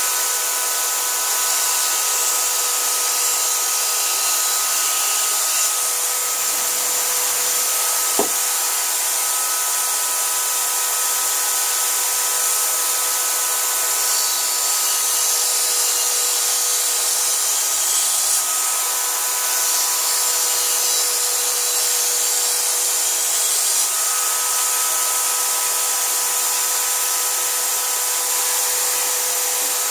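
Electric drill running at a steady speed with a fine grinding stone in its chuck, the stone grinding along the steel edge of a kitchen cleaver to reshape the edge: a steady motor whine over a grinding hiss.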